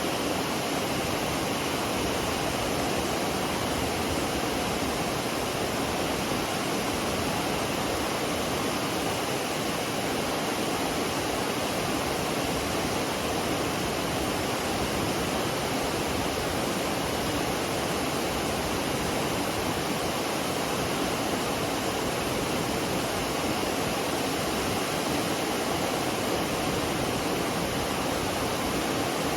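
McCloud River waterfall: a steady, even rush of falling water.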